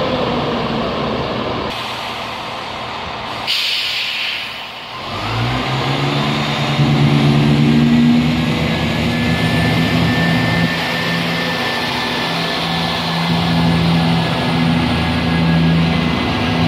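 Northern Class 170 Turbostar diesel multiple unit. A short burst of air hiss comes about three and a half seconds in, then its underfloor diesel engines power up with a rising note and run steadily as the train pulls away.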